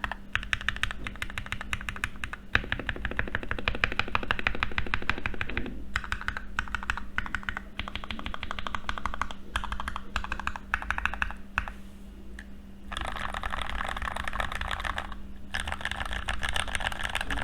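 Continuous fast typing on an NK65 mechanical keyboard with linear Gateron Ink Black V2 switches in an aluminium plate and OEM transparent keycaps: a dense stream of keystroke clicks with short pauses now and then. A steady low hum sits underneath.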